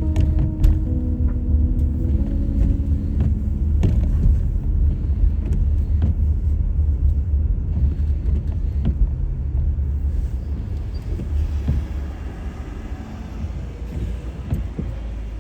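Car driving on a snow- and ice-covered road, heard from inside: a steady low rumble with scattered light knocks, easing off over the last few seconds.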